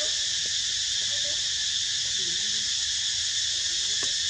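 Forest insect chorus: a steady high-pitched drone. Faint short calls are in the background, and there is a single sharp tick near the end.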